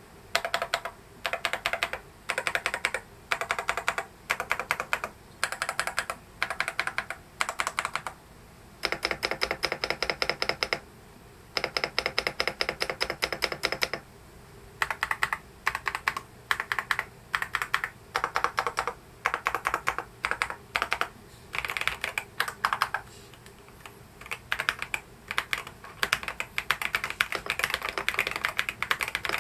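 Typing on an EPOMAKER DynaTab 75 mechanical keyboard fitted with Wisteria switches: short runs of rapid keystrokes separated by brief pauses, with two longer unbroken runs in the middle. Near the end the clicking turns into denser, near-continuous two-handed typing.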